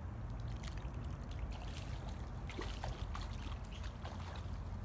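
A small hooked fish splashing at the water's surface as it is reeled in, in irregular bursts, over a steady low rumble.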